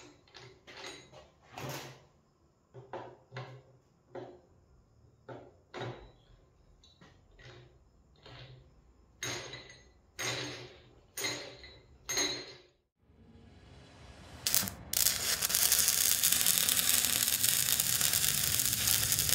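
Irregular metallic clicks and knocks as a small outboard motor's shaft and lower unit are handled and turned, with four louder knocks about a second apart past the middle. About two-thirds of the way through, a loud music sting takes over.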